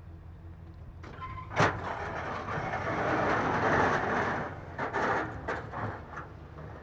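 Pickup truck engine running steadily. About a second and a half in there is a sharp clunk, then a few seconds of rough scraping noise, and a couple of knocks near the end.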